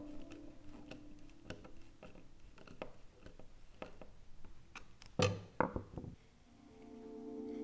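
Faint clicks and creaks of a hand screwdriver turning small brass screws into thin walnut strips, with a couple of louder knocks about five seconds in. Background music fades out at the start and rises again near the end.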